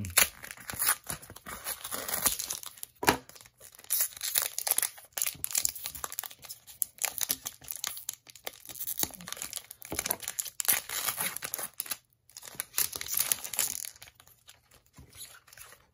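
Pokémon booster pack's foil wrapper being torn open and crinkled by hand: irregular crackling and tearing, with a brief pause about twelve seconds in.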